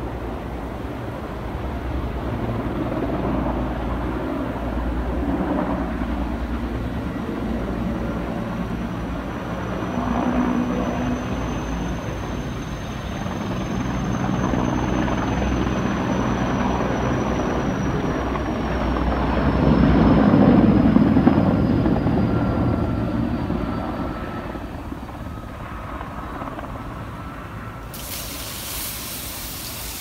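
Erickson S-64 Air-Crane heavy-lift helicopter flying overhead: a low rotor beat under a high turbine whine that rises and then slowly falls. It grows loudest about two-thirds of the way through, then fades away.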